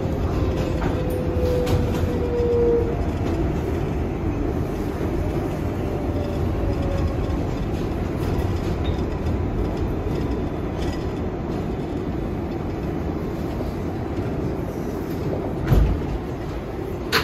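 R188 subway train running on the 7 line, heard from inside the car: a steady rumble of wheels on track with a faint motor whine that sinks slightly in pitch over the first few seconds. There is one low thump near the end.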